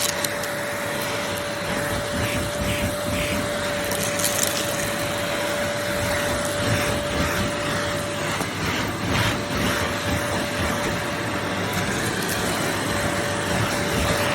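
Vytronix CYL01 800 W bagless cylinder vacuum cleaner running: a steady rush of suction with a constant motor whine that fades out for a few seconds partway through, then comes back, with a few light clicks.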